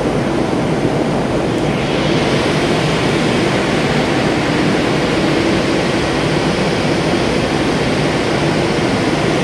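Large vertical electric motors driving water-supply pumps of about 450 HP, running with a loud, steady hum and rush and a faint low tone underneath. The noise turns hissier about two seconds in.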